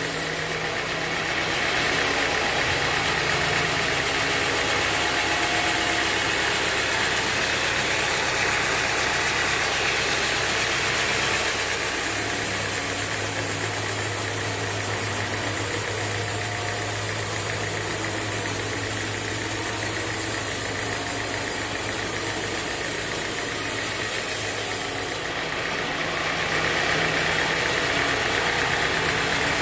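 Band sawmill machinery running steadily. Its low hum drops in pitch about 12 seconds in and rises again near 25 seconds.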